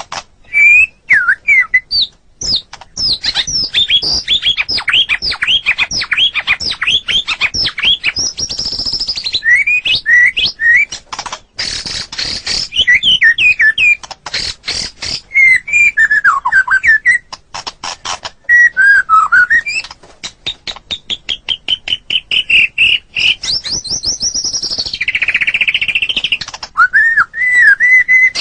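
White-rumped shama (murai batu) singing a long, varied song: clear whistles gliding up and down, mixed with fast runs of sharp repeated notes and chattering trills.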